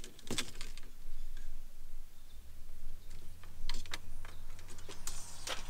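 Scattered clicks and light knocks of fly rods and reels being handled and hooked into an overhead rod strap inside a vehicle, with a low steady hum coming in partway through.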